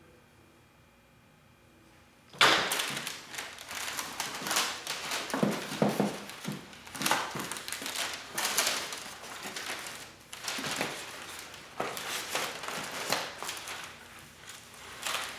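Packaging and parts being handled during an unboxing: irregular rustling with clatter, clicks and knocks, starting after about two seconds of quiet.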